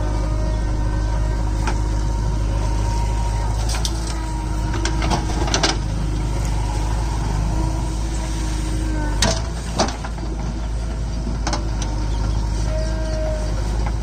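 JCB backhoe loader's diesel engine running steadily under load while it digs soil, with several sharp knocks, the loudest about nine and ten seconds in.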